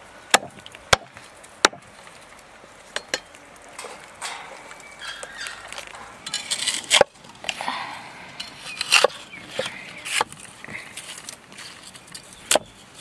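About nine sharp, irregularly spaced chopping knocks, such as a blade striking a wooden surface, the loudest about 7 s and 9 s in.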